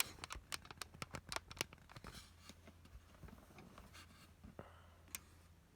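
A quick run of light clicks and taps, thinning out after about a second and a half into a few scattered ones.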